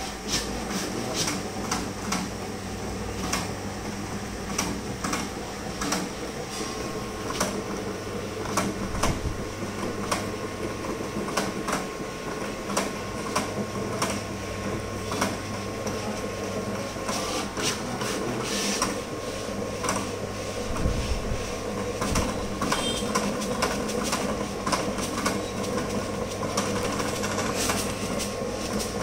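Vinyl cutting plotter contour-cutting a printed sticker sheet: a steady motor hum under many irregular sharp clicks as the cutting head and the media feed move back and forth.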